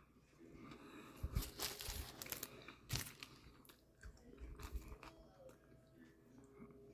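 A person chewing a mouthful of sub sandwich close to the microphone: faint, irregular crunching and wet mouth clicks, busiest in the first half and again about four to five seconds in.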